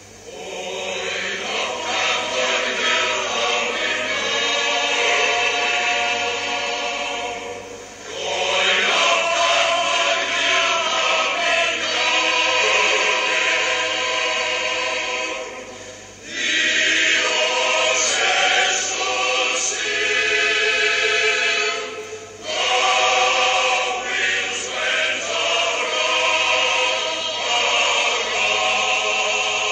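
A choir singing long, held phrases as background music, with brief pauses about 8, 16 and 22 seconds in.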